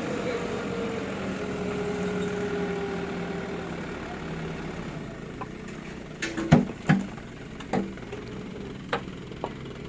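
A vehicle engine running close by at low revs, its pitch easing down slightly. About six to nine seconds in come a few sharp knocks and clanks, the loudest among them.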